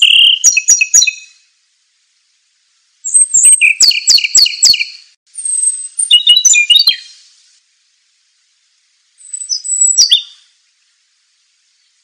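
Small songbird singing four short phrases of high whistles and quick trills, separated by pauses of about a second or two.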